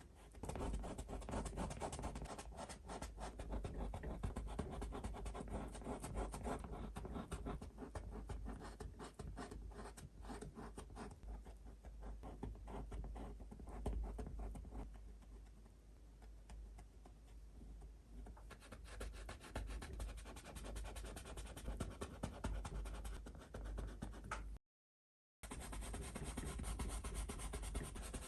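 Paintbrush bristles stroking and scrubbing water-soluble oil paint across the painting surface in a dense run of short scratchy strokes. The strokes are softer for several seconds in the middle. Near the end the sound drops out completely for under a second.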